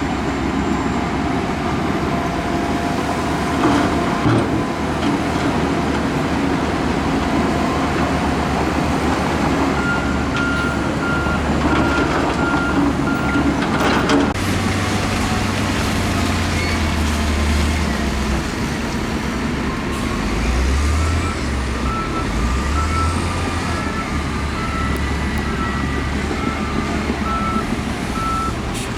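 Heavy earthmoving machinery, bulldozer and wheel loader diesel engines, running steadily under load. A reversing alarm beeps in two runs, one about a third of the way in and one through the last third, and a single sharp clank comes about halfway.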